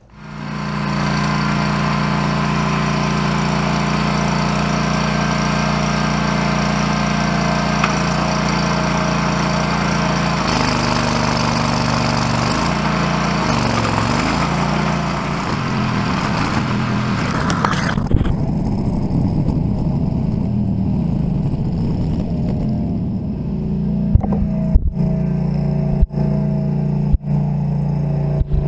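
Walk-behind tracked trencher's engine running steadily while its digging chain cuts through soil. The engine note shifts partway through, a loud hiss stops suddenly about 18 seconds in, and several sharp knocks come near the end.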